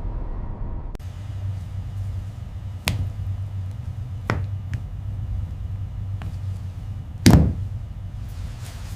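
A steady low hum with a few sharp knocks scattered through it, and one louder, heavier thud near the end.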